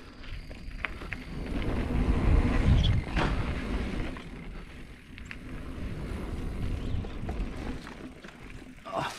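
Mountain bike rolling fast along a dirt singletrack: a low tyre and wind rumble that swells about two to three seconds in, scattered with small clicks and rattles from the bike over the bumps, and a sharper knock near the end.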